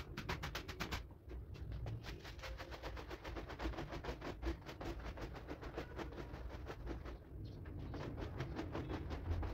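Stiff-bristled push broom scrubbing a wet, soapy rug in rapid, rhythmic strokes, several a second, with brief pauses about one second in and again near seven seconds.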